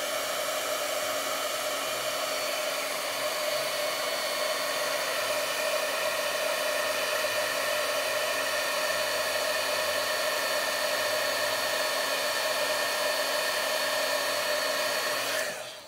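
Embossing heat tool running steadily, its fan blowing hot air with a steady whine as it melts gold embossing powder on a stamped sentiment. It switches off shortly before the end.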